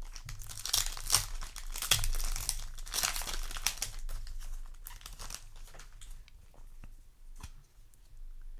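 Foil Yu-Gi-Oh! booster pack wrapper crinkling and being torn open, with the thickest crackle in the first few seconds, then thinning to a few light ticks.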